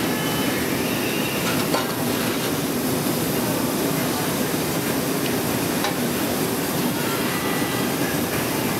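Steady roar of a glassworks hot shop, with a few faint clicks of metal tools.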